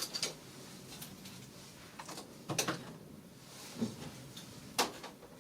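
A few scattered sharp clicks and knocks of hand work on the car, the loudest near the end; no engine running.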